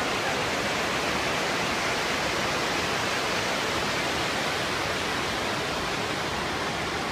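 Steady rushing of water spilling over a river weir, an even hiss with no breaks or strokes.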